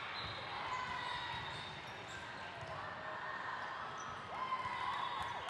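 Echoing gym ambience during volleyball play: sneakers squeaking on the court floor, balls thudding, and a murmur of distant voices. The clearest squeaks come near the end.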